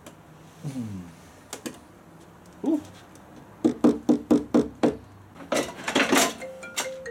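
Knocks and clatter as a small camping cook pot and a wooden crate lid are handled: a quick run of about six knocks, followed by scraping and rustling.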